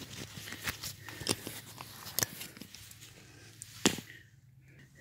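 Handling noises from the tire and strap work: irregular light clicks, taps and rubbing, with one sharper click about four seconds in, over a faint steady low hum.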